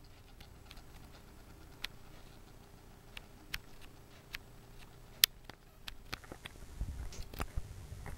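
A small pet mouse scrabbling about in its cage: irregular light clicks and scratches, one sharp click about five seconds in, and a busier flurry with low bumps near the end.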